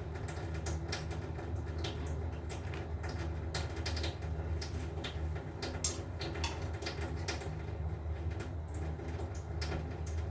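Kitchen clatter: scattered small clicks and knocks of things being handled, over a steady low hum.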